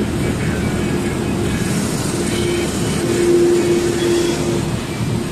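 Truck engine and tyre noise heard inside the cab while driving, a steady drone with a hum that grows louder for a second or so about three seconds in.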